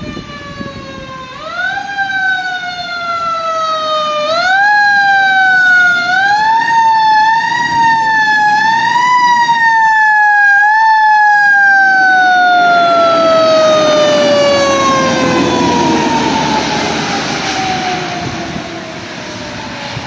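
Fire truck's Federal Q2B mechanical siren, wound up again and again so that its wail climbs in quick steps. It then coasts down in one long, slowly falling wail through the second half. The truck's diesel engine rumbles underneath as it goes by.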